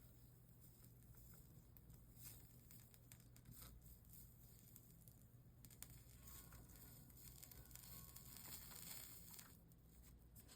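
Near silence: room tone with a steady low hum and a few faint clicks, and a soft hiss that swells briefly near the end.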